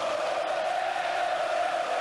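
A mass of voices holding one long steady note, like a chanting crowd or a choir.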